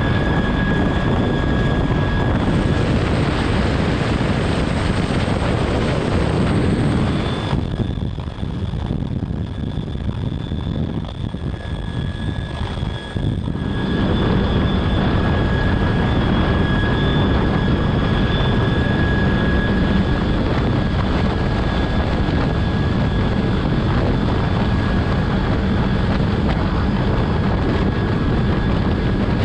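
CH-53K King Stallion heavy-lift helicopter hovering, heard from inside the cabin: steady, loud rotor and turbine noise with a few steady high whines. For several seconds near the middle it turns quieter and duller, then comes back to full level.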